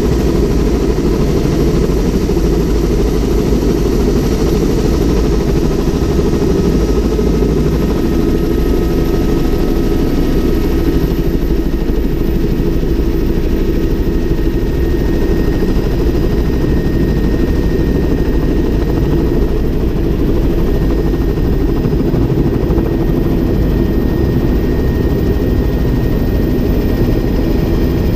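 Helicopter engine and main rotor running steadily at a constant loud level, heard from inside the cabin as it sits on the helipad, with a faint high whine that climbs slightly about ten seconds in. Near the end the helicopter lifts and turns.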